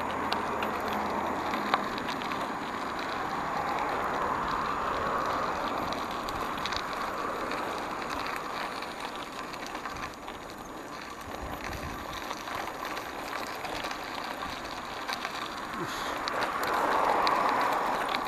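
Hybrid bicycle rolling along a gravel path: a steady crunching rush from the tyres on loose stones, with small scattered clicks and rattles. It grows a little louder near the end.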